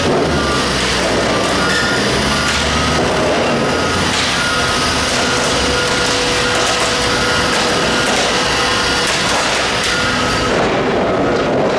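Liebherr R9200 mining excavator travelling on its steel crawler tracks: a loud steady engine drone under the clatter of the track plates, with a travel alarm beeping over it.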